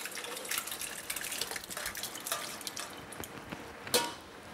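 Cooked asparagus soup, with its vegetables and bread, pouring and splashing wetly from a stainless steel saucepan into a tall stainless steel blender beaker. There is a sharp metallic clink near the end.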